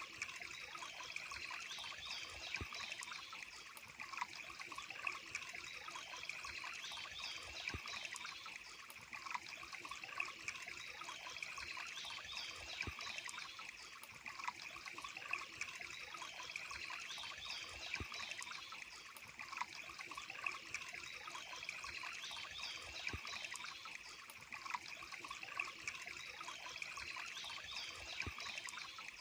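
Water trickling and burbling steadily, as in a small stream, with scattered little drips and splashes.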